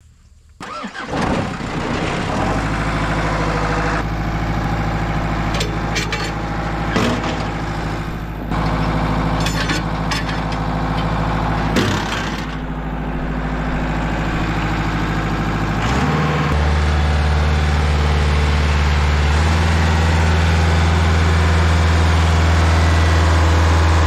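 An engine starts about a second in and then runs steadily at idle, with a few sharp clicks over it. About sixteen seconds in, its note shifts and it runs louder and steadier.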